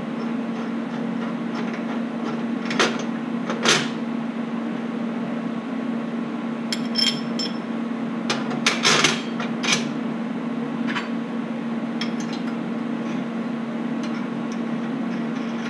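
Small steel pieces clinking and knocking against a steel suspension bracket and the steel table as they are handled and set in place. The knocks come scattered, a few of them ringing briefly, over a steady hum.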